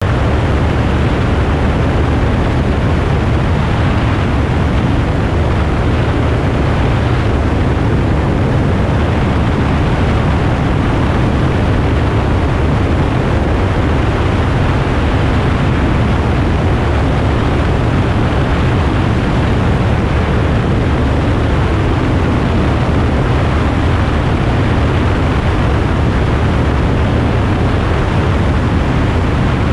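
Steady wind rush mixed with the drone of a light airplane in flight, picked up by a camera mounted outside the aircraft. The sound is heavy at the low end and holds steady throughout.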